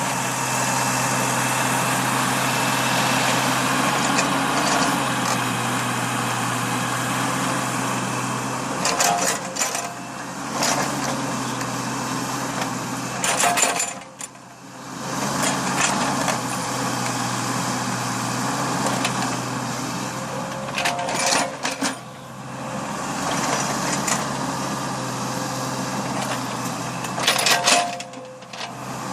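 Small backhoe's engine running steadily while it digs, with clanks from the bucket and arm about four times; the engine sound drops away briefly twice.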